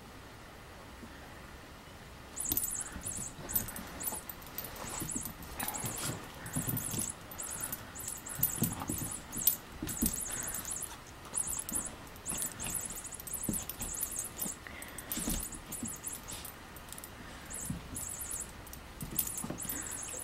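A plastic lattice-ball cat toy jingling in quick, irregular bursts as a small chihuahua bats, mouths and carries it. Soft knocks and scuffles of the toy and paws on carpet come with it. The jingling starts about two seconds in.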